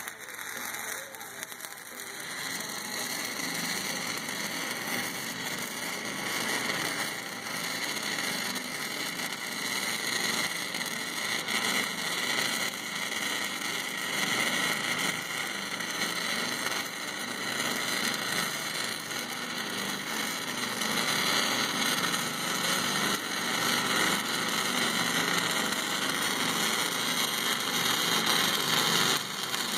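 E6010 stick-welding arc crackling steadily, louder from about two seconds in, during an uphill root pass on 8-inch pipe in the 5G position.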